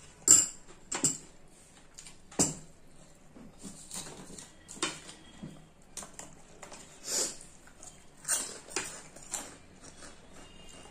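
Metal spoons clinking and scraping against plates and a bowl while eating, in irregular clicks, the loudest three in the first two and a half seconds.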